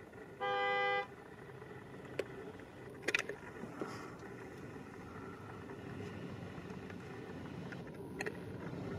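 Distant, low rumble of an Airbus A319's CFM56 jet engines as the airliner rolls along the runway, growing slowly louder. A brief loud beeping tone lasting about half a second sounds near the start, and a few sharp clicks come two to three seconds in.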